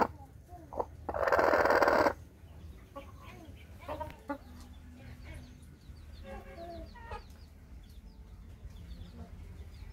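Broody hen sitting on eggs gives a loud, harsh call lasting about a second, a second into the sound, then a few softer clucks. Faint high chirps come near the end.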